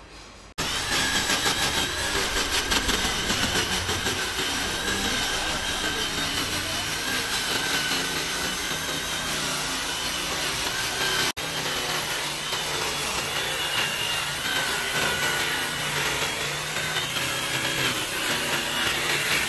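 Handheld electric drill with an abrasive disc grinding the rough edge of a solid lim (ironwood) slab: a steady motor whine over rasping wood noise. It starts suddenly about half a second in and breaks off for an instant about eleven seconds in.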